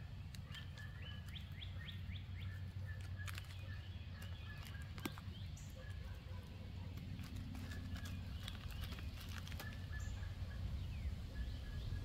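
Wild birds calling: a short note repeated many times, with bursts of quick chirps, over a low steady hum. Scattered sharp clicks and crackles come from a plastic MRE pouch being handled and a cracker being eaten.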